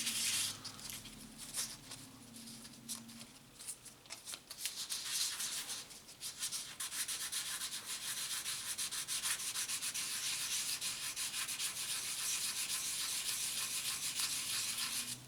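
800-grit wet sandpaper rubbing in small circles over an aluminium heat sink, a fine, steady rasping hiss. It is softer for the first few seconds, then steadier and a little louder.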